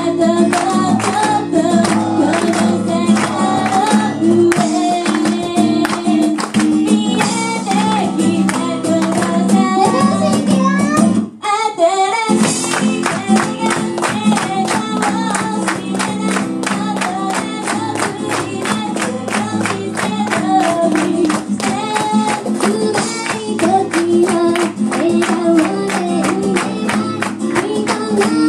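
A live acoustic pop song: strummed acoustic guitar with female voices singing the melody, broken by a short pause about eleven seconds in before the music comes back.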